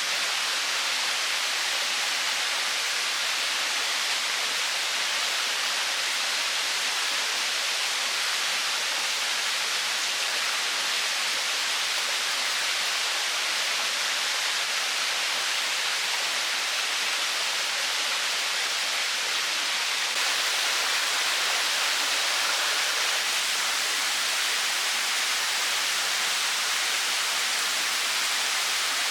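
Steady rush of running water, an even hiss with no distinct splashes, a little louder about two-thirds of the way in.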